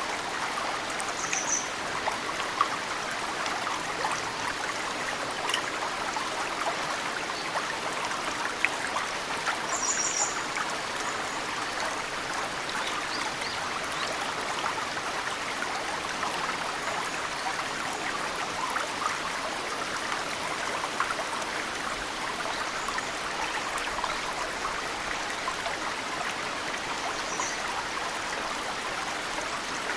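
Mountain stream flowing steadily, with snowmelt drips falling into the water. A few short, high bird chirps come through over the water, about three times.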